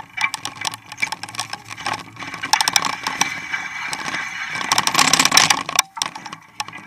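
Mountain bike rolling with two dogs hitched alongside on a Springer bike attachment: a steady rush of tyre and ride noise with many quick rattles and clicks from the bike and attachment, louder about five seconds in.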